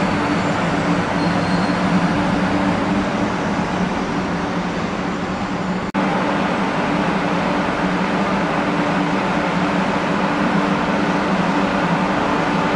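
Shinkansen high-speed train running through the station: a steady loud rushing noise with a low hum underneath, broken by a sudden brief dropout about six seconds in.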